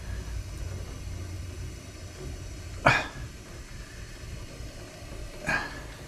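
Low steady hum from the gas furnace's newly wired transformer, now powered up, with two short sharp noises, the first about three seconds in and louder, the second about five and a half seconds in.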